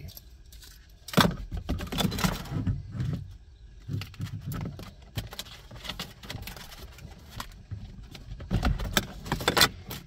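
Hands working plastic door trim and wiring behind a car's interior door panel: irregular plastic clicks, taps and rustling as a thin wire is pulled through. There is a sharp click about a second in and a cluster of clicks near the end.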